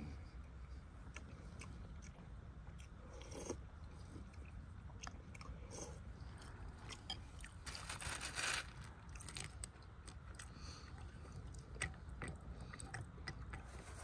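Soup being eaten with spoons: scattered small clicks of metal spoons against ceramic bowls, with quiet chewing. About eight seconds in comes a louder, roughly one-second rustle as dry bread croutons are grabbed from a wicker basket.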